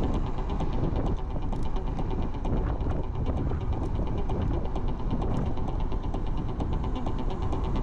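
Wind buffeting a chest-mounted action camera, with road rumble, while riding an electric scooter at speed: a loud, steady rumble with a faint, fast, regular ticking over it.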